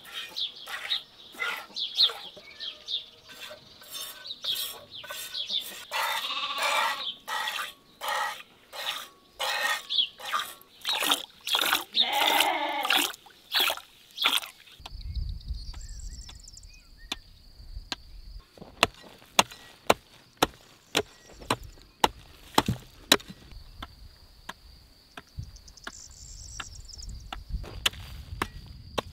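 Milk squirting in quick strokes as a sheep is milked by hand, about two squirts a second, with a sheep bleating about twelve seconds in. About halfway through this gives way to a steady high insect chirring over a low rumble, with scattered sharp knocks.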